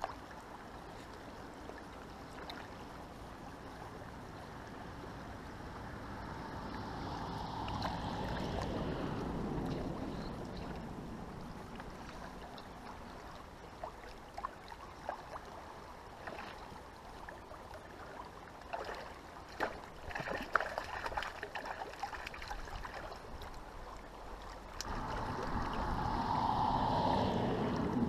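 Fast-flowing river water rushing steadily. The rush swells louder twice, and a scatter of sharp clicks and knocks falls in the middle.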